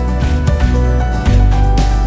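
Background music with a steady drum beat, strong bass and sustained held notes.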